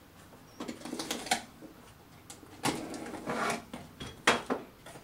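Utility knife slitting the packing tape on a cardboard box, with cardboard rustling and handling noise and a few sharp clicks and knocks, the loudest near the end.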